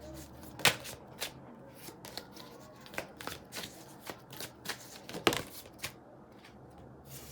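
A tarot deck being shuffled by hand: an irregular run of short card snaps and riffles, with two louder snaps, one just under a second in and one about five seconds in.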